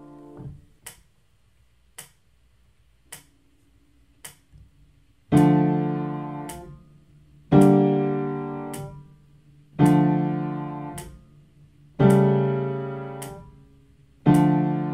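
Piano playing left-hand block chords in D minor to a metronome: four clicks count in, then a chord on every other beat, each held and released: D minor, G minor over D, D minor, A dominant seven, and D minor again.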